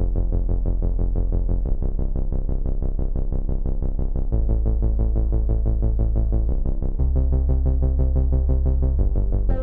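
Background music: synthesizer chords pulsing in a fast, even rhythm, moving to a new chord every couple of seconds.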